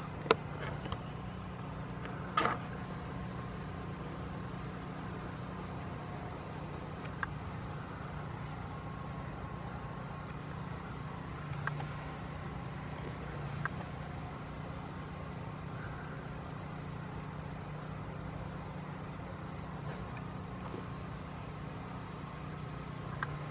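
A steady low engine hum, with a few faint clicks and a brief higher sound about two and a half seconds in.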